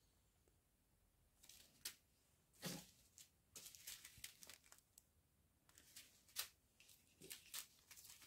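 Faint crinkling of small plastic zip-lock bags of diamond painting beads as they are handled and set down, in scattered short rustles.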